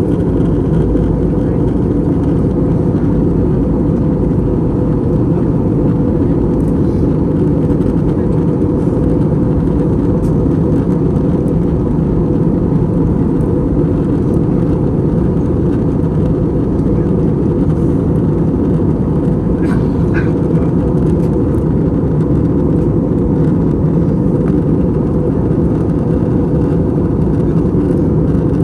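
Steady in-flight cabin noise of an Airbus A321, a loud deep rumble of airflow and its IAE V2500 engines heard from a rear coach seat. A brief higher sound comes about 20 seconds in.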